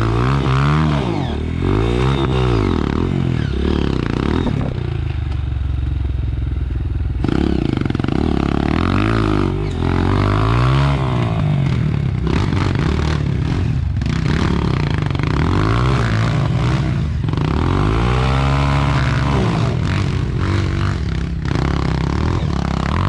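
An off-road vehicle's engine revving hard and easing off again and again, its pitch rising and falling every second or two as it works over rough ground.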